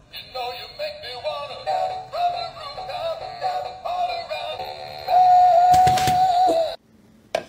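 A dancing cactus toy singing a song in a synthetic voice, ending on a long held note and cutting off abruptly near the end. A brief knock about six seconds in.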